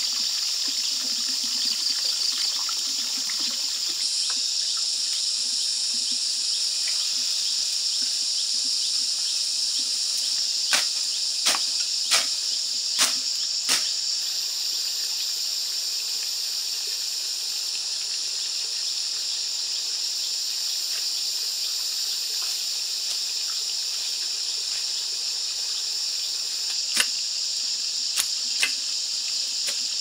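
A steady, high-pitched chorus of insects throughout. Over it come sharp chops of a machete cutting brush: about five quick strikes halfway through and three more near the end.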